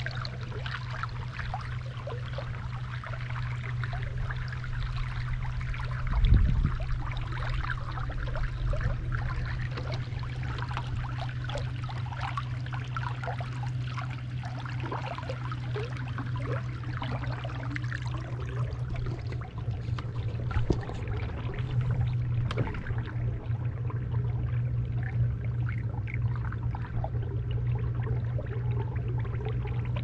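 Water splashing and trickling along a small boat's hull as it moves along the river, over a steady low hum. There is a single low bump about six seconds in.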